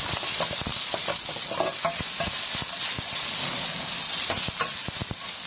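Diced meat sizzling in hot oil in a frying pan while it is stirred: a steady sizzle with many short clicks and scrapes of the utensil against the pan.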